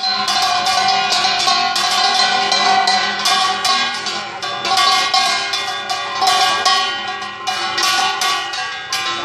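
Metal percussion struck rapidly and unevenly without pause, its ringing tones sustaining over the strikes, as with clanging bells.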